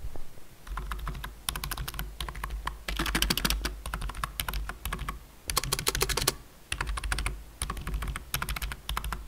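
Typing on a low-profile membrane keyboard with round keycaps: quick runs of key presses clicking, in bursts with short pauses between them.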